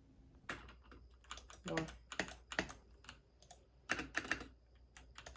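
Keys being typed on a MageGee mechanical gaming keyboard with red switches: irregular clusters of key clicks.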